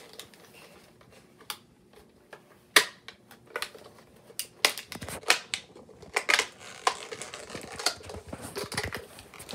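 Small plastic toy ring cart and its packaging ties being handled: irregular clicks, taps and rustles of plastic, sparse at first with one loud click about three seconds in, then coming thicker and faster.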